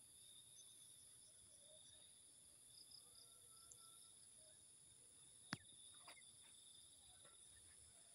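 Faint, steady chorus of crickets and other insects, with a single sharp click about five and a half seconds in and a fainter one just after.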